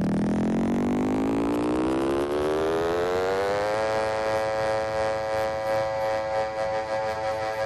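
Electronic synthesizer tone rising steadily in pitch, then holding one sustained note from about four seconds in.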